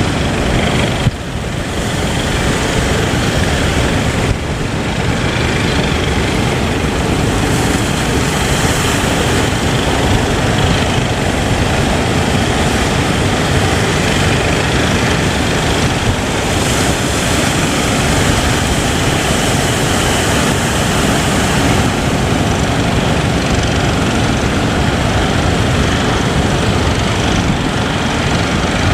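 Boat engine running loud and steady under rushing wind and water noise, with two brief drops in level near the start.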